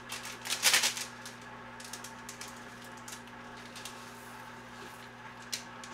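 A small plastic garnish packet crinkling sharply about half a second in, then lighter rustles and a few ticks as dried garnish is shaken out of it over noodles in a metal bowl.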